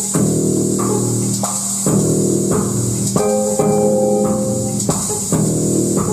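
Live electronic music played on synthesizers through speakers: a sequence of sustained, stacked chords, each starting with a sharp attack, changing roughly once a second over a steady high hiss.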